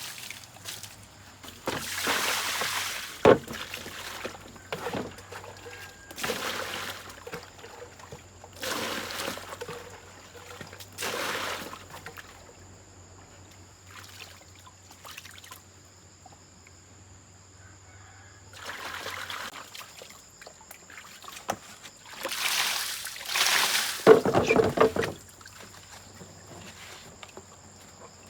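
Water pouring and sloshing in short bursts of a second or so, repeated several times, with a quieter stretch in the middle and the loudest burst near the end.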